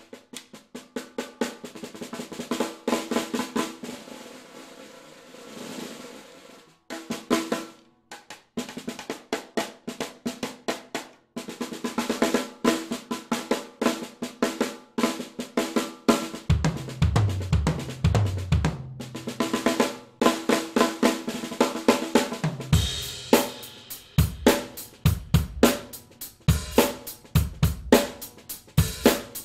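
Pancake drum kit with zebrawood-over-mahogany shells and Evans heads, played with sticks: fast strokes and rolls on the shallow 12x4" snare and the 10x3" and 13x3" toms. The 18x3" bass drum joins about halfway through, and cymbal crashes come in the last few seconds.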